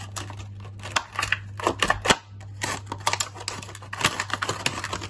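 Scissors cutting through a thin plastic drinks bottle: an irregular run of sharp snips and clicks of the plastic.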